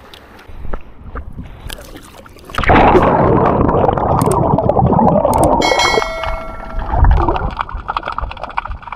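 Action camera taken underwater by a swimmer. About two and a half seconds in, a loud rushing and gurgling of water against the camera housing starts and carries on as he moves through the shallows.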